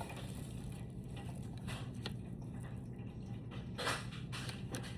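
A few soft clicks and rustles of a spinning fishing reel being handled, over a steady low hum.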